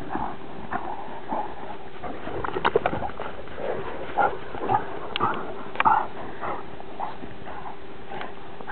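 A Transylvanian hound and a bloodhound play-fighting, making many short growls and snorts in quick bursts, loudest about three seconds in and again around five to six seconds.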